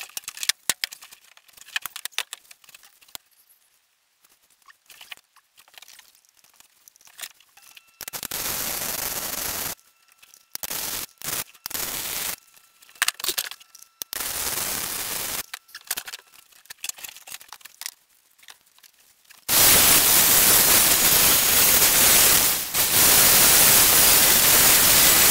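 Electric welding arc on steel, running in short bursts of one to a few seconds with quiet gaps and scattered clicks between them, then a longer, louder run of about six seconds near the end.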